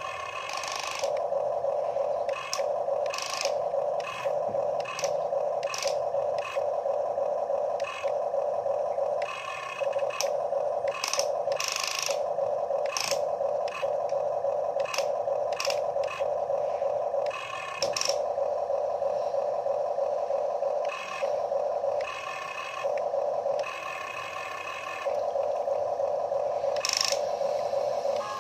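Electric gear motors of a Huina RC excavator whining as the boom and arm move, the whine stopping and starting in short gaps, with gritty scrapes and clicks from the gears and bucket.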